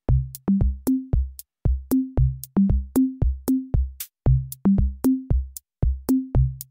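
Background music: an electronic drum-machine beat of deep pitched drum hits stepping between a few notes, each with a sharp high tick, about three hits a second.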